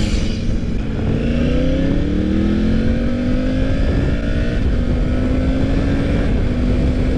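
Triumph Tiger 900 Rally Pro's three-cylinder engine accelerating under load, its pitch climbing and breaking twice as the rider clicks up through the gears with the quick shifter.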